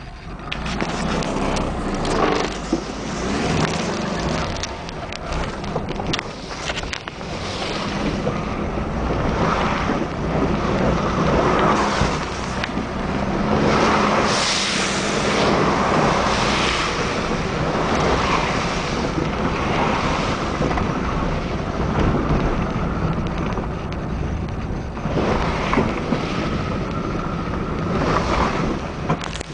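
Alfa Romeo 33 1.5 4x4's flat-four engine running under load as the car drives along a muddy dirt track, heard from inside the cabin. Tyres splash through puddles, giving repeated swells of rushing hiss, the biggest about midway and another near the end.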